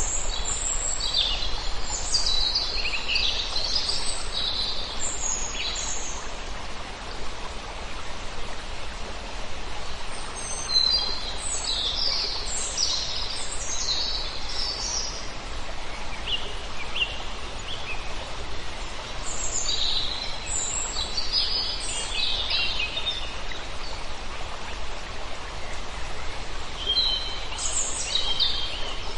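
Songbirds singing in bursts of quick, high phrases, over a steady rush of flowing water.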